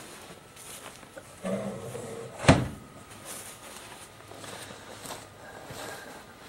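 The aluminum lid of a Generac standby generator's enclosure is lowered and shut: a brief handling sound, then a single sharp clunk about two and a half seconds in. The generator engine is not running.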